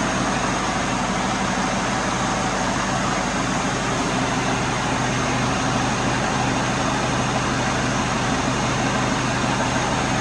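A vehicle engine running steadily, an even hum with no change in pitch.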